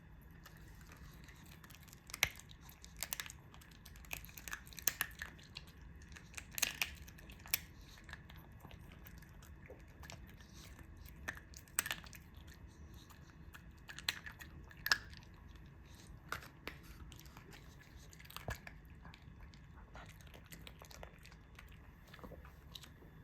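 A dog chewing and crunching a treat, with irregular crisp bites.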